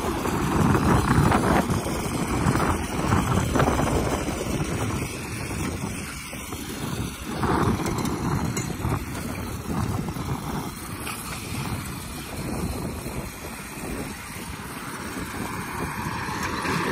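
Wind buffeting the microphone, a rushing rumble that swells and fades, with a small vehicle running under it.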